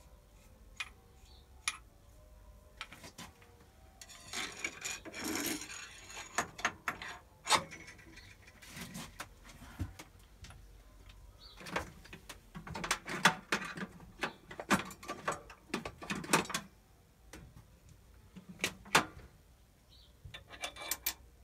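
Hand work on metal machine parts and tools: irregular clusters of clinks, knocks and scraping rubs, with quiet gaps between.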